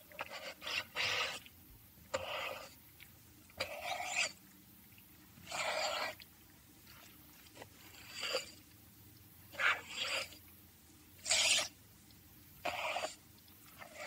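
Knife cutting through meat on a cutting board: about ten separate rasping, scraping strokes, each under a second, at uneven intervals.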